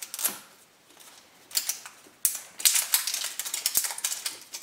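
Printed wrapper being peeled off a plastic surprise-egg capsule: a few faint clicks, a short lull, then dense crinkling and crackling from about a second and a half in.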